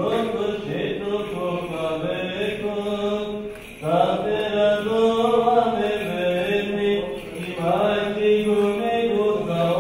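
Orthodox church chant: voices singing a slow melody over a held low drone note, in phrases with short breaths about three and a half seconds in and again near the eight-second mark.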